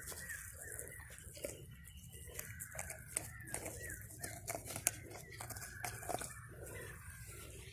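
Faint crackling and rustling of dry straw as a caught snakehead fish shifts on it, with a bird repeating short falling chirps in the background.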